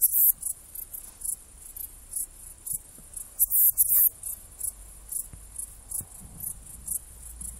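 Saddle-backed bush-cricket (Ephippiger ephippiger) stridulating: short, very high-pitched chirps repeated irregularly, about one or two a second, some in quick pairs or clusters.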